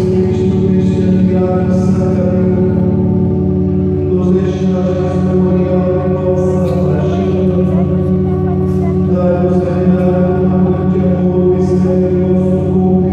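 Congregation singing a hymn to an electronic keyboard holding a sustained chord, with a trumpet playing along.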